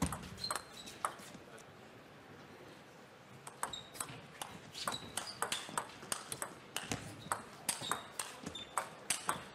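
Table tennis ball being played in a rally: quick sharp clicks off the rackets and the table in alternation, starting about three and a half seconds in. Before that there are only a few scattered ticks.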